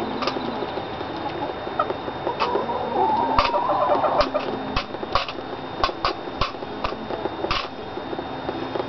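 Hens clucking while pecking at a sterling silver candy dish, their beaks striking it in about ten sharp, irregular clicks.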